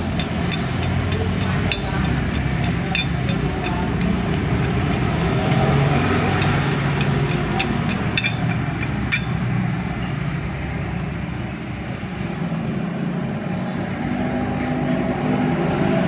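A hand tool scrapes rust out of the teeth of a Toyota Avanza steering rack bar, making rapid, irregular scratching clicks that stop about nine seconds in. A vehicle engine runs steadily in the background throughout.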